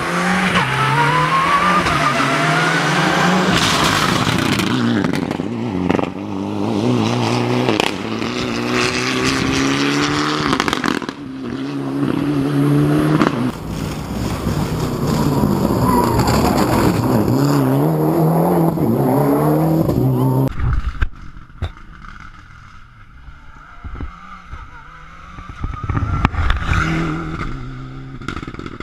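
Rally car engine revving hard and rising in pitch again and again as it goes up through the gears, with tyre noise, heard over several fast passes. About two-thirds of the way through it drops to a much fainter, more distant engine sound.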